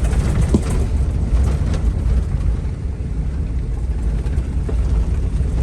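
Camper van driving slowly on a rough dirt trail: a steady low engine and road rumble, with a faint irregular ticking coming from the van.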